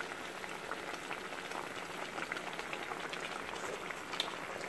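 Pork-rib adobo sauce simmering in a stainless pot: a steady crackle of small bubbles as the broth reduces. A single light click comes about four seconds in.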